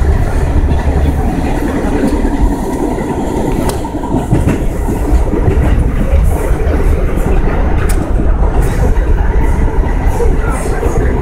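New York City subway car running at speed, heard from inside the car: a steady low rumble with the wheels clacking over the rails in several sharp clicks.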